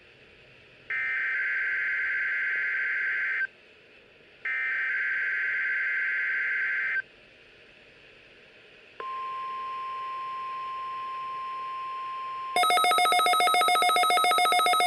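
NOAA Weather Radio alert test signal: two shrill digital SAME header bursts of about two and a half seconds each, a second apart, then a steady single-pitch warning alarm tone for about three and a half seconds. About twelve seconds in, a louder, rapidly pulsing electronic alarm starts.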